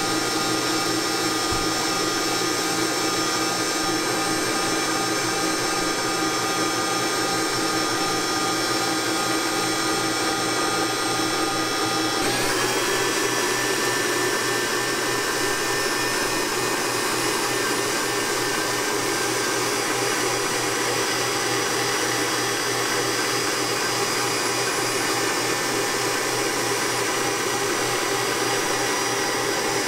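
Kenwood stand mixer running steadily, its motor whining as the whisk beats a white foamy mixture in the stainless steel bowl. About twelve seconds in, the whine shifts to a higher pitch and carries on.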